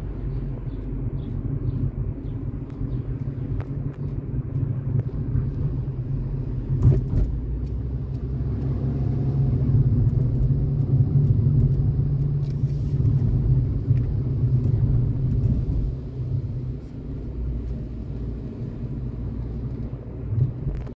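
Car cabin noise while driving: a steady low rumble of engine and tyres on the road. A single knock about seven seconds in; the rumble grows louder around the middle and eases off later.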